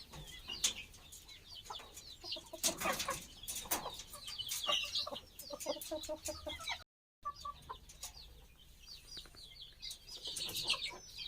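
A flock of chickens clucking, with many short high chirps through it. The sound cuts out completely for a moment about seven seconds in.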